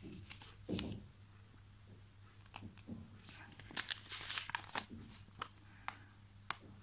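Paper pages of a small printed user manual rustling as they are handled and turned, in short crinkly strokes that are busiest about three to five seconds in.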